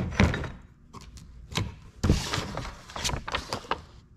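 Hands handling the parts of a hydraulic clutch conversion kit in a cardboard box: a sharp knock at the start, then scattered clicks and rustling of paper and cardboard.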